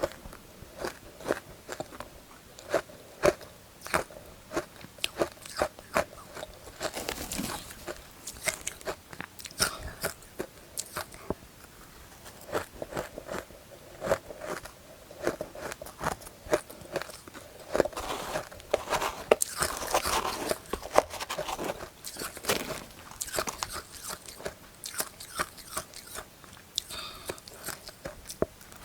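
Close-up crunching and chewing of powdery matcha-dusted ice: bites at irregular intervals, each a sharp crunch followed by softer chewing, with longer stretches of chewing in between.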